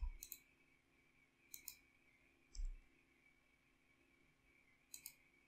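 Faint computer mouse clicks: three quick pairs spread over a few seconds, with a soft low thump about two and a half seconds in.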